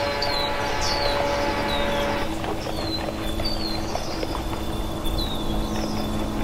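Small birds chirping in short, quick, falling calls, repeated over and over, above a steady ambient music drone. The drone's held notes change about two seconds in.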